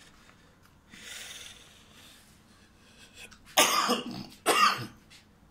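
A person coughing twice in quick succession, starting about three and a half seconds in.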